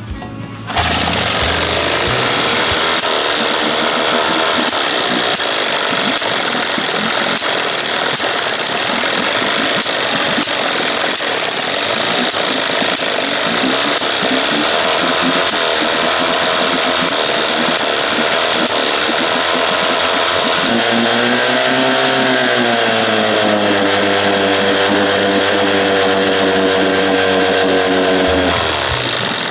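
Small two-cylinder gasoline engine running, coming in suddenly about a second in. It is rough and uneven, then speeds up briefly about two-thirds of the way through and settles into a steadier note before dropping away near the end. It is popping and blowing out at a leak, which the owner takes for a bad seal.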